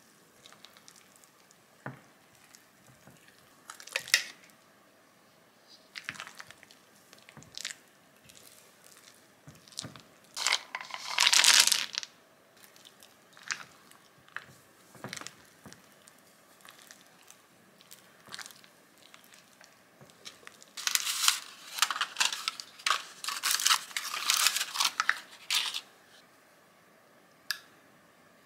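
Silicone spatula stirring and scraping thick banana muffin batter in a glass mixing bowl, with scattered clicks against the glass. Two stretches of crinkly rustling stand out, a short one just under halfway through and a longer, denser one near the end.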